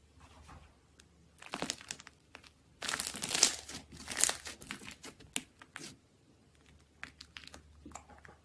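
Slime being squeezed and worked by hand, giving crackly, crinkling pops. A short burst comes about a second and a half in, and a longer, louder one from about three to six seconds in, followed by a few scattered crackles.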